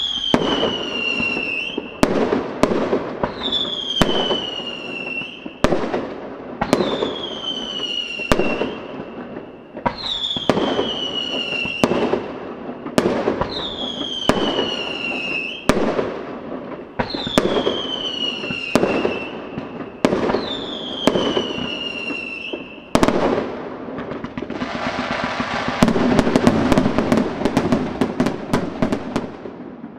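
Fireworks display: shells go up one after another about every two seconds, each with a falling whistle and then sharp bangs as it bursts. Near the end this gives way to a dense hissing crackle full of rapid pops.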